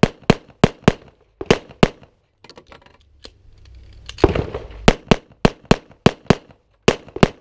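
Pistol shots fired rapidly during a practical shooting course of fire: a quick string of sharp reports, a pause of about two seconds with faint movement noise, then a longer quick string of shots.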